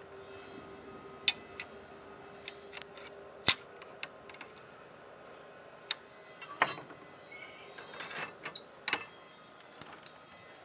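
Irregular sharp metallic clicks and knocks, about a dozen, from steel bar being handled and worked on a hand-operated cold-forging scroll bender; the loudest knock comes about three and a half seconds in. A faint steady hum runs under the first few seconds and stops at that knock.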